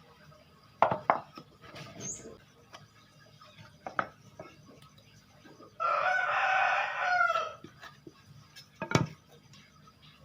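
A rooster crowing once, a drawn-out call of about a second and a half midway through, the loudest sound here. Around it are a few sharp knocks, one at about a second in, another at about four seconds and one near the end.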